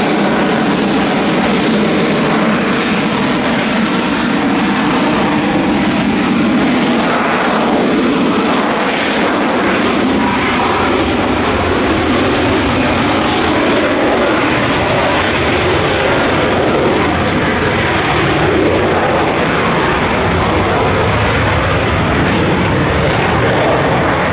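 Lockheed Martin F-35B Lightning II hovering in its short take-off/vertical landing mode. Its F135 turbofan, with the shaft-driven lift fan engaged, makes loud, steady jet noise with a heavy low rumble and no let-up in level.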